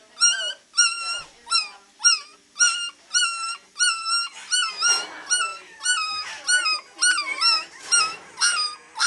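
Three-week-old beagle puppy baying: a run of short, high-pitched howling yelps, about two a second, each bending in pitch.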